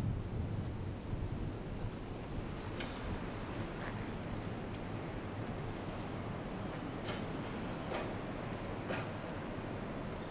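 Crickets trilling in one steady high-pitched band over a steady rushing background of wind and surf.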